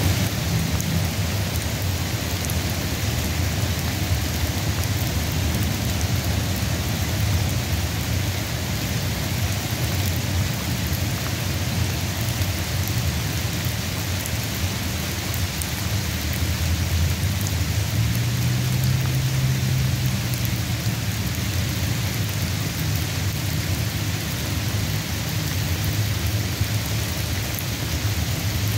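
Rain falling steadily in an even hiss, over a continuous low rumble that swells slightly about two-thirds of the way through.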